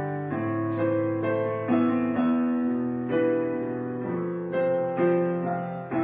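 Slow, gentle background piano music, with sustained chords and a new note or chord struck about once a second.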